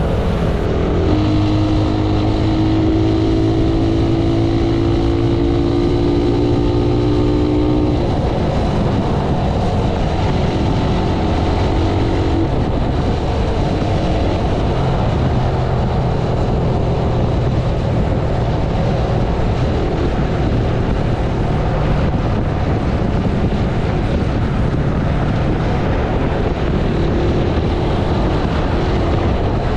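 Sport motorcycle engine running under way, heard over a steady rush of wind and road noise. Its note climbs slowly for several seconds as the bike accelerates, drops away about eight seconds in, and picks up again briefly later.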